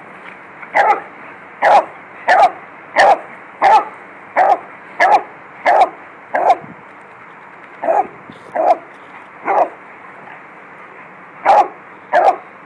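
Beagle barking in a steady run of about fourteen short barks, roughly one every two-thirds of a second, broken by two brief pauses.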